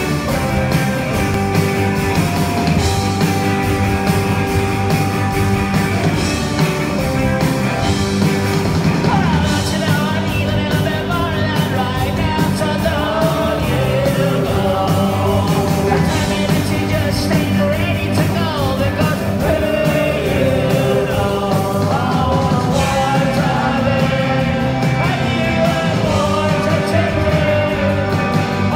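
Live rock band playing loudly: electric guitars, drums and keyboard, with a voice singing from about ten seconds in.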